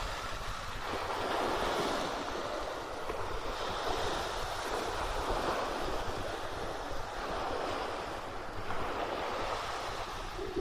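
Sea surf washing onto a beach, the hiss of the waves rising and falling every few seconds, with wind rumbling on the microphone.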